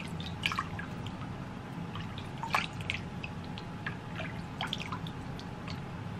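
Water splashing and dripping in a bowl as hands scoop it up to wet the face: a scatter of small splashes, the loudest about two and a half seconds in.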